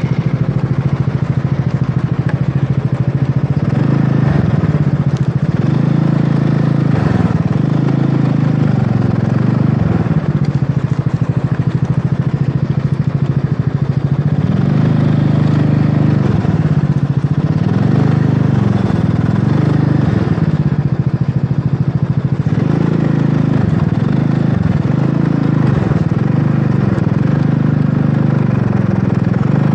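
Wolf Rugby 150cc scooter engine running steadily at low riding speed, its pitch rising and falling slightly as the throttle changes.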